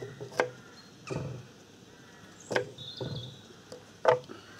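Kitchen knife cutting an onion on a wooden chopping board: three sharp knocks of the blade on the board, a second or two apart, with softer thuds between them.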